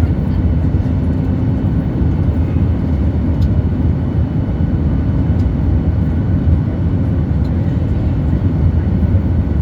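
Steady low rumble of a passenger airliner's engines and rushing air, heard from inside the cabin while the plane comes in to land.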